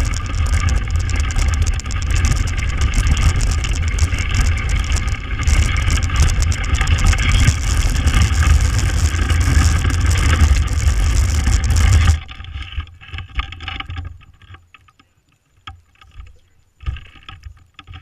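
Dog sled gliding over snow, heard through a camera mounted on the sled: a continuous rumble and scraping hiss from the runners and the shaking frame. About twelve seconds in it stops abruptly as the sled halts, leaving quieter scattered knocks and rustles.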